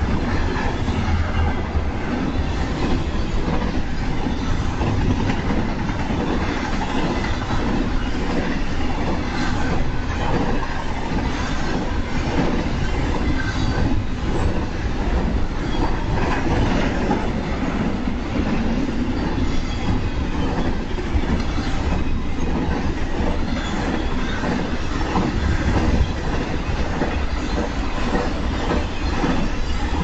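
Double-stack intermodal container cars rolling past on the rails: a steady rumble with a clatter of wheels on the track.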